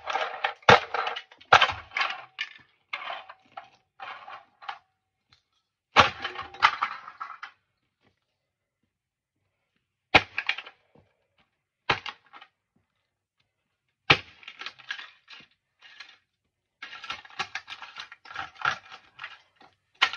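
Plastic toy fire truck cracking and crunching under stomping work boots on concrete, in bursts of sharp cracks with short pauses between them.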